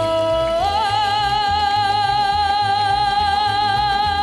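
A young girl singing a long held note with vibrato, stepping up in pitch about half a second in, backed by a mariachi band with guitars and a steady alternating bass line.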